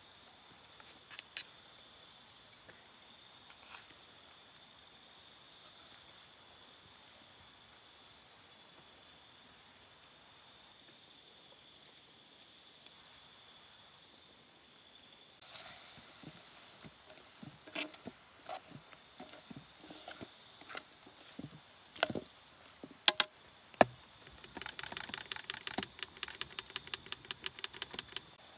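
Night insects, crickets or the like, trill steadily on one high tone. About halfway through, handling knocks and scrapes start up, ending in a fast run of clicks, about five a second.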